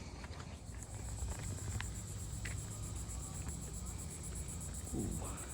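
Insects trilling steadily at a high pitch, a rapid pulsing buzz that comes in about a second in, over a low rumble. A short rising call sounds near the end.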